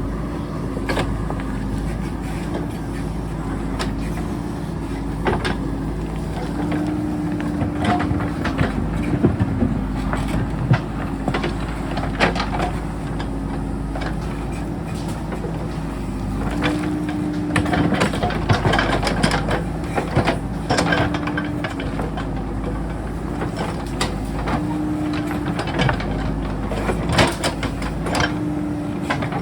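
JCB backhoe loader's diesel engine running under hydraulic load, rising in pitch for a second or two at a time every few seconds as the digging work loads it. Sharp knocks and clatter of rock against the steel bucket are scattered throughout.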